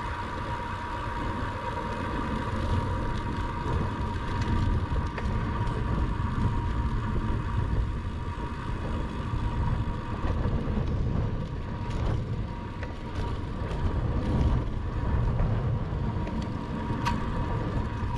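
Wind buffeting the microphone and tyre noise from a bicycle riding at speed on a paved road. A faint steady whine runs underneath, and there is a light tick near the end.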